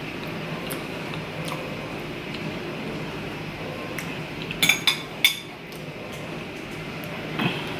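A metal fork clinking against a plate, three sharp clinks in quick succession a little past halfway and a softer one near the end, over quiet chewing.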